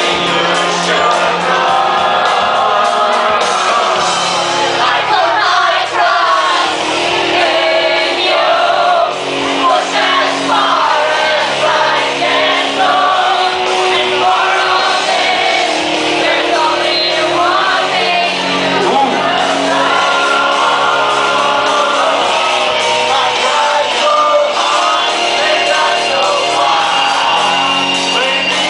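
A rock song playing loudly, with a group of men singing and shouting along.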